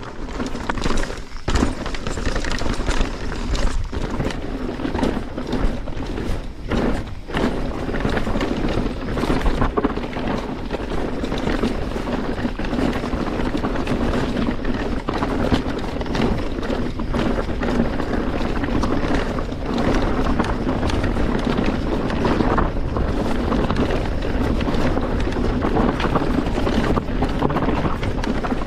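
Mountain bike riding fast down a rocky trail: a steady rush of wind over the microphone, tyre roar, and frequent knocks and rattles as the bike hits rocks.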